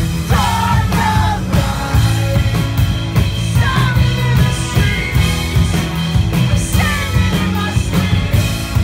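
Live rock band playing: an acoustic guitar strummed over bass and drums, with a male voice singing.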